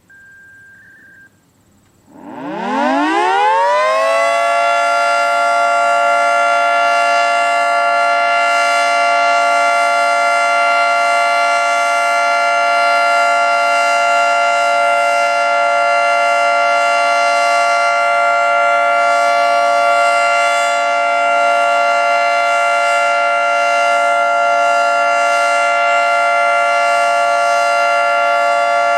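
Federal Signal 2T22 two-tone outdoor warning siren starting up about two seconds in, its pitch rising over about two seconds to a steady two-tone chord. It then holds the steady alert signal at full volume.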